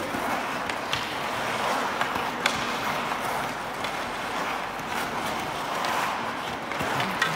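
Ice hockey skates carving and scraping on the ice in quick tight turns, with a few sharp clacks, the clearest about two and a half seconds in.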